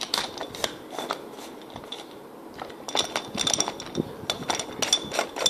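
Irregular small clicks and taps of a precision screwdriver set being handled and its bits and case worked, with a quieter stretch about a second in. A faint thin high steady whine runs under the clicks in the second half.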